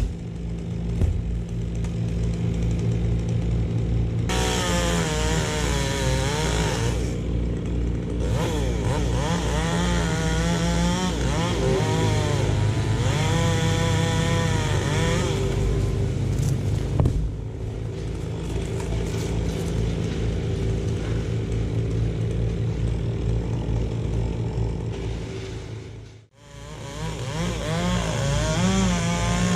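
Gas chainsaw running and cutting wood, its engine speed rising and falling over and over as it bites into the log, with a sudden brief break about 26 seconds in.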